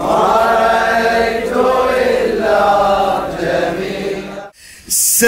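Several voices chanting a slow, mournful melody in chorus, breaking off about four and a half seconds in; a brief hiss follows just before the end.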